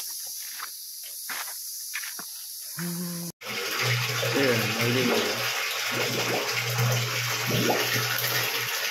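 Water gushing from a supply pipe into a water tank, a loud steady splashing that starts suddenly about three seconds in: the supply line running again after being fixed. Before it there is only a faint outdoor hiss with a few light clicks and rustles.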